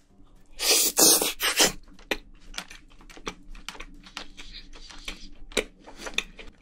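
Close-miked eating of a large mouthful of spicy Korean braised seafood (haemul-jjim) with fish roe: a loud, noisy intake of the bite about a second in, then rapid wet chewing clicks and smacks.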